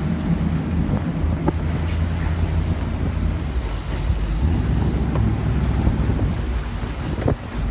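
Boat engine running with a steady low drone, with wind buffeting the microphone and short spells of hiss.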